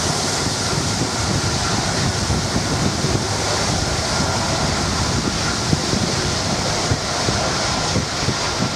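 Stormy wind buffeting the microphone in gusts, over a steady rushing hiss.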